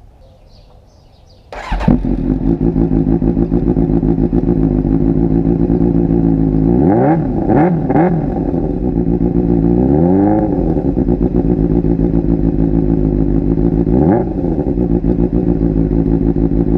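2002 Suzuki GSX-R600 K2 inline-four fitted with an aftermarket M4 exhaust, idling from about a second and a half in. Three quick throttle blips come about seven to eight seconds in, a longer rev follows a couple of seconds later, and one more blip comes near the end.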